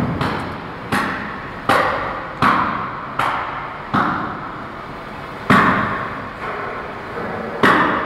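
A series of about eight sharp knocks or clanks on the carcass processing line, each dying away with a long echo in a large hard-walled hall. They come roughly every three-quarters of a second for the first four seconds, then further apart, with the loudest near the middle and near the end.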